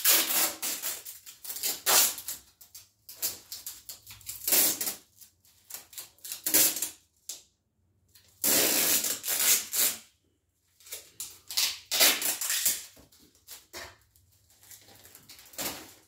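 Adhesive tape being pulled off the roll in repeated short bursts, with irregular gaps between the pulls.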